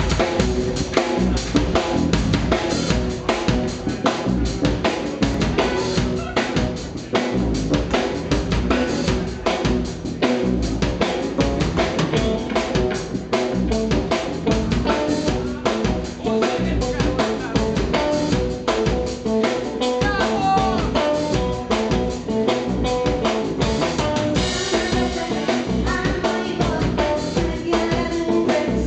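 Live band playing: drum kit keeping a steady beat with snare and bass drum, under electric bass and electric guitar.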